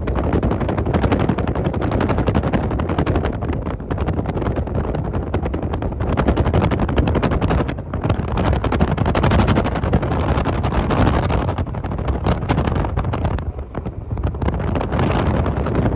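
Wind buffeting the microphone of a vehicle driving at speed, with road noise under it: a dense, rough rush full of rapid crackling. It dips briefly about eight seconds in and again near the end.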